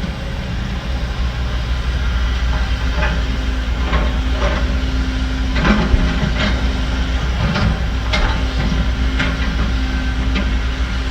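Heavy diesel earthmoving machinery running steadily with a low drone. Irregular metallic clanks and knocks come through it, about nine over the middle and later part.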